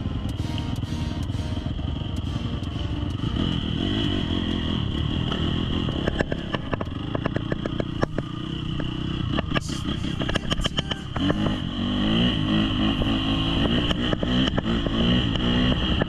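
Trail motorcycle engine running under way, with clattering knocks and rattles. About eleven seconds in, the engine gets louder and its pitch rises and falls as it revs.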